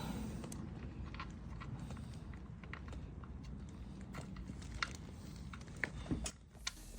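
Faint, scattered small clicks and taps of hand work on a motorcycle, over a low steady background hum.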